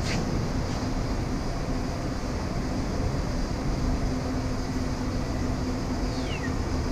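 A steady low mechanical drone with a faint constant hum, like a running engine or machine. A short falling whistle comes near the end.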